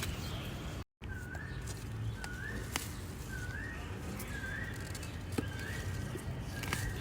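A bird calling a short rising whistle, repeated about once a second, six times, over a steady low background with a few sharp clicks. The sound cuts out completely for a moment just before the calls begin.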